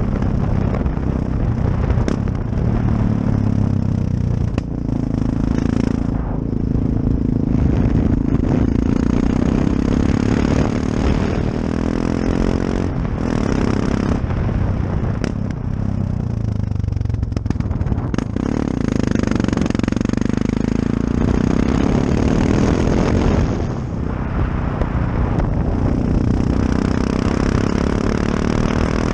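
Yamaha XT660X single-cylinder engine under way with a passenger aboard, the revs rising and falling through gear changes and throttle lifts several times, with wind rushing over the microphone.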